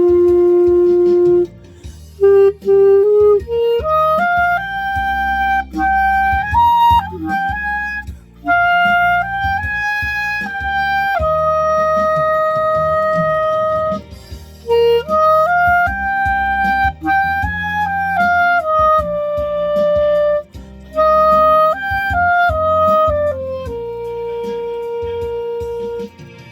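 Clarinet playing a slow song melody in long held notes that step up and down, with brief breaks between phrases, over a low backing accompaniment.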